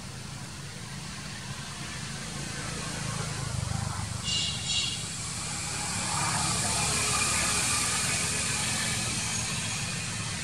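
Steady low outdoor rumble with hiss, swelling about halfway through, with a short high-pitched squeak about four seconds in.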